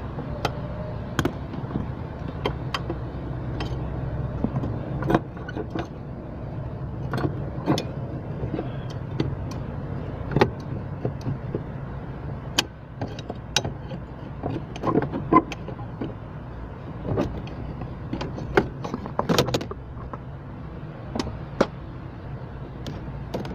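Scattered clicks and light metallic knocks of hands and tools working a clutch master cylinder loose from its mounting at the clutch pedal, over a steady low hum.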